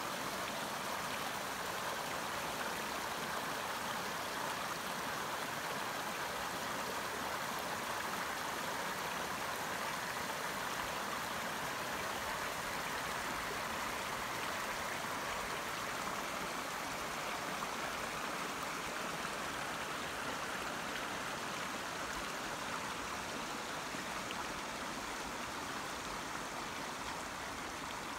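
Shallow creek water running over a rocky riffle: a steady, even rush of flowing water.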